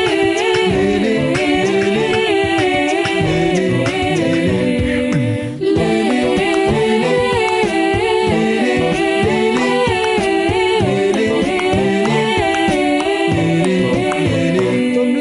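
A cappella vocal music: several voices sing a melody in harmony over a steady beat, with a brief drop about five and a half seconds in.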